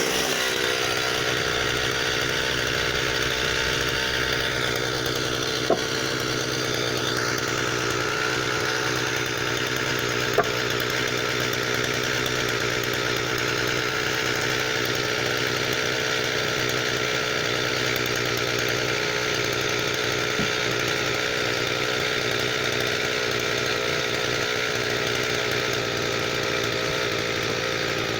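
Husqvarna 359 two-stroke chainsaw held at steady high revs, in line with cutting through firewood, with two brief knocks partway through.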